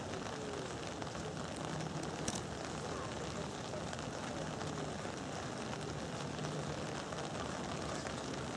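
Steady rushing outdoor background noise with a faint low hum underneath.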